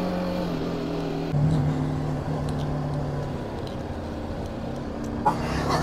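Motorcycle engine running steadily under way, heard from on the bike, with road and wind noise. About a second and a half in, the engine note changes abruptly.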